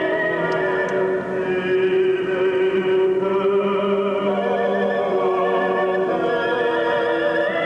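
Opera-style classical music: a voice or voices holding long notes with vibrato over instrumental accompaniment.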